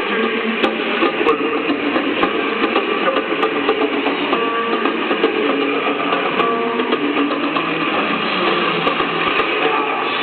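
A live rock band playing over a cheering crowd, heard on a muffled, low-fidelity concert recording with the top end cut off.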